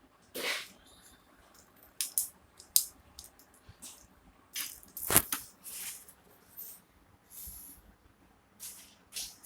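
Two kittens playing: irregular scratches, taps and rustles from their paws and claws, with a sharp click about five seconds in.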